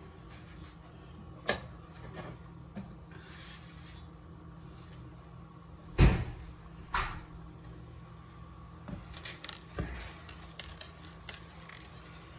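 Kitchen handling noises: a few sharp knocks and light clacks. The loudest comes about six seconds in, with another a second later and a run of small clicks a few seconds after, like cupboard doors or dishes being moved and set down.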